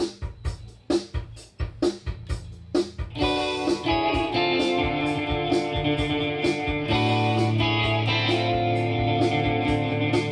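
Electric guitar playing: a few separate, clipped hits that ring and die away, then from about three seconds in a fuller, sustained run of notes, with a deep low note held from about seven seconds in.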